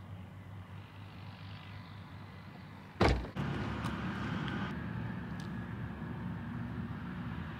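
A steady low hum, then a loud thump about three seconds in, followed by a louder, steady low rumble.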